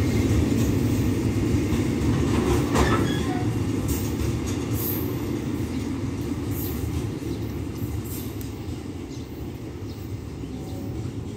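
Freight train of cement tank wagons rolling on the rails, a steady low rumble of wheels with a few faint clicks. It fades steadily as the last wagons pull away.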